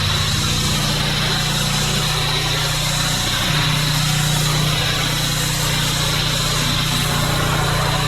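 Pressure washer engine running steadily, with a constant hiss of spray.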